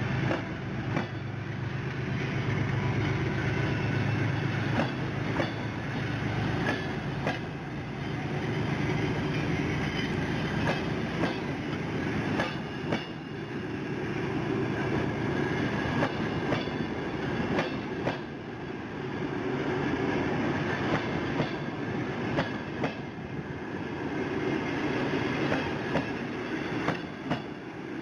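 Departing passenger train rolling along the track, its wheels clicking over rail joints at an uneven rate over a steady rumble, with a faint squeal of wheels.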